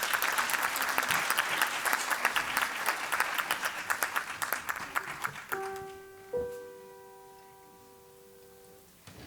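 An audience applauds for about five seconds. Then a piano sounds two held notes, about a second apart, and lets them ring and fade, giving the opening notes of the next piece.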